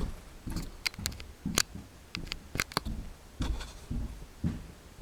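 Paper yearbook being handled: a run of sharp, crisp clicks and soft low thumps as the pages are held and moved.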